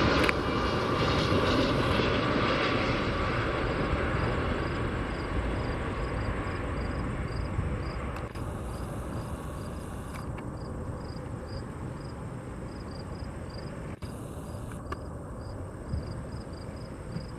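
Boeing 757-200 jet engines rumbling during the landing rollout, loud at first and fading steadily as the aircraft slows and moves away. A faint high chirp repeats about twice a second through the second half.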